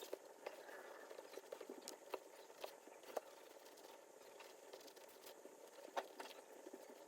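Faint, scattered clicks and light scratching of hands working on a leather baseball glove, with a sharper click about six seconds in.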